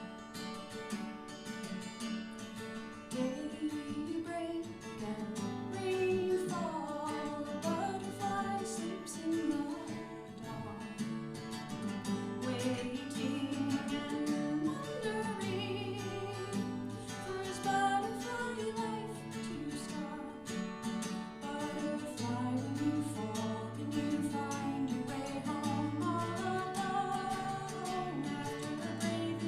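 Acoustic guitar strummed steadily through an instrumental passage of a folk song. From about four seconds in, a wordless melody line glides over it.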